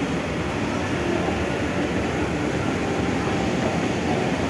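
Steady mechanical rumble and hum of a moving escalator, heard while riding it down.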